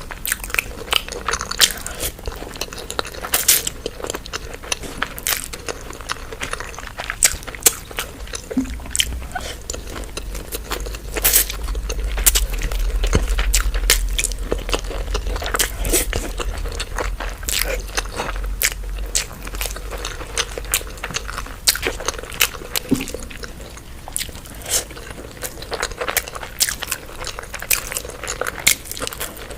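A person chewing and biting crunchy street food, with many irregular sharp crunching clicks.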